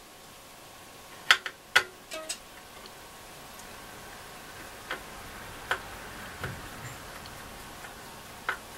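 Light, irregular clicks and taps of small plastic and metal parts of a transistor radio chassis being handled: a quick cluster in the first couple of seconds, then single clicks a second or so apart.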